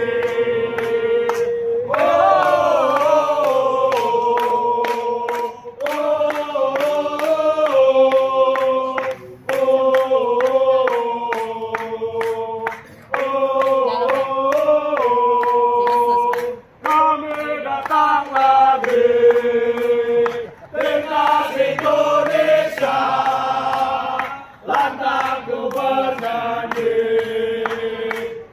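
Crowd of Indonesian national football team supporters singing a chant together in repeated phrases of a few seconds each, with short gaps between phrases and sharp beats keeping time.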